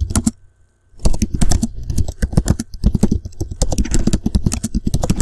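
Fast typing on a computer keyboard: a quick run of key clicks that stops for under a second near the start, then runs on steadily.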